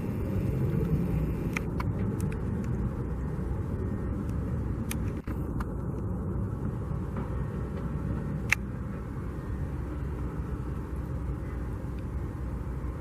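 Steady low rumble of road traffic, with a few light clicks and one sharper click a little past halfway.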